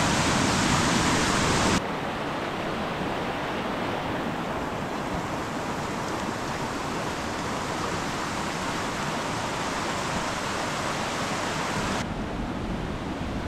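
Rushing water of a river in full spate, a steady, loud rush. The sound drops suddenly about two seconds in and turns duller near the end, like cuts between spots at different distances from the water.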